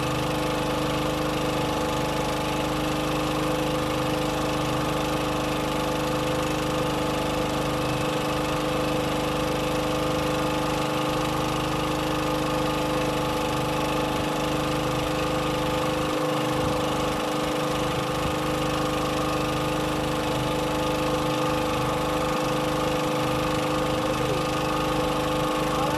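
Fishing boat's engine running steadily at constant speed, with a steady hum holding several fixed tones.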